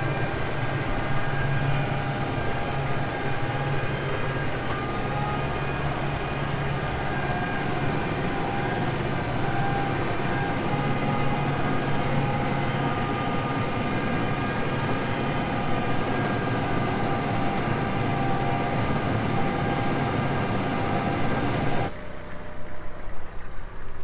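Tractor engine running under load pulling an International 1490 haybine through standing hay: a steady mechanical drone with several steady whining tones from the running machinery. About 22 seconds in the drone drops off suddenly to a quieter, thinner sound.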